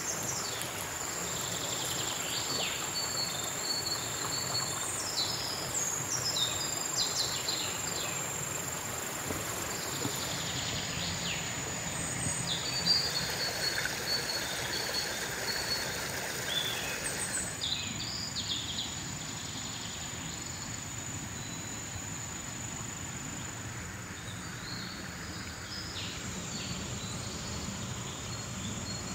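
Forest ambience: insects keep up a steady high-pitched drone, and birds give scattered short chirps, most of them in the first half, over a steady background hiss.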